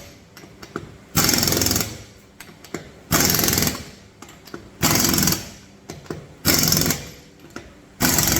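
Impact wrench tightening a fastener in short rattling bursts of under a second each, five in all, about every one and a half to two seconds, run at its higher power setting.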